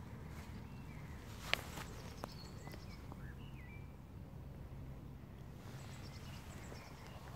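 Faint outdoor ambience: a few distant bird chirps over a low steady rumble, with one sharp click about one and a half seconds in.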